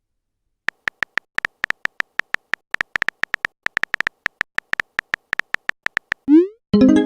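A rapid run of short, identical electronic beeps at an uneven rhythm, about six a second: a text-typing blip sound effect of the kind used as dialogue appears in chat-story videos.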